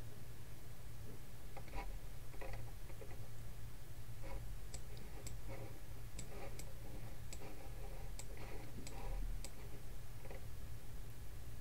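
Irregular clicks and ticks from a computer mouse as the map is dragged and zoomed, sharper in the middle stretch, over a steady low hum.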